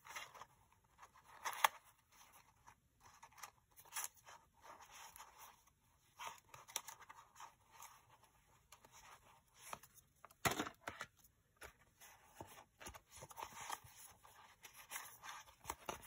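A clear plastic sleeve and the paper labels inside it rustling and crinkling as they are handled, in short scattered rustles, with a sharp crackle near the start and a louder one about two-thirds of the way through.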